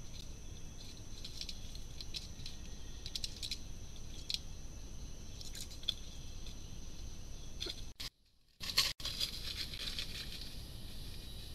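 Tropical forest ambience picked up by a camera trap: a steady high insect drone with scattered light scratches and clicks. After a short break about 8 s in, a denser high insect chirring takes over.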